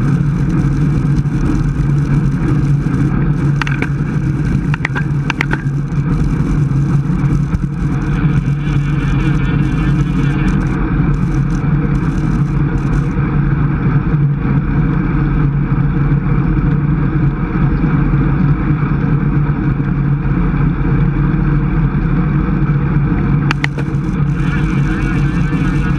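Steady wind noise over a bicycle-mounted camera's microphone while riding a road bike at about 23 mph. A few brief ticks come around five seconds in and again near the end.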